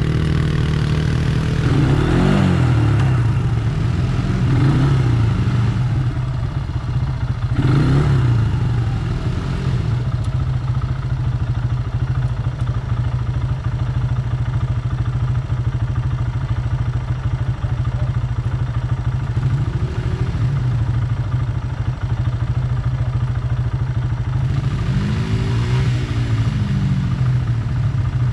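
ATV engine running on a dirt trail, its revs rising and falling a few times, steadier in the middle stretch.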